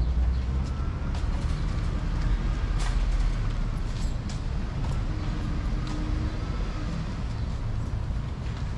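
Street ambience of city traffic: a steady low rumble with a few scattered sharp clicks and faint passing tones.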